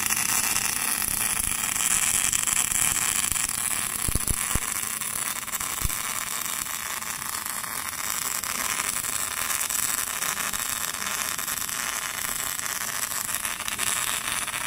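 Wire-feed welding arc on a steel pipe joint on an automatic pipe welding machine: a steady hiss. A few faint knocks come about four and six seconds in.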